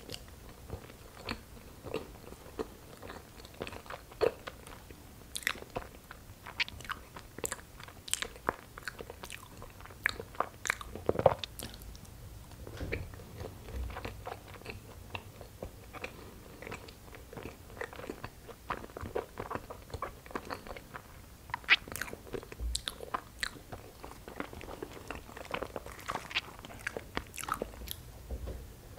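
A person chewing soft, chewy injeolmi rice cakes filled with cream cheese: a steady run of wet mouth clicks and smacks, with a couple of sharper ones around a third and three quarters of the way through.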